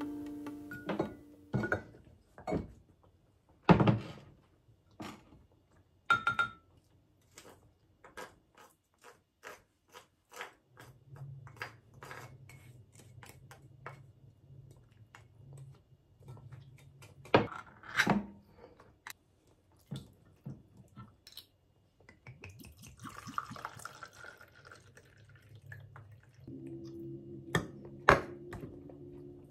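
Kitchen handling sounds from mixing a sauce: scattered clicks and clinks of bottles, a ceramic grating dish and a spoon against a glass measuring cup, one clink ringing briefly about six seconds in, and a spoon stirring near the end.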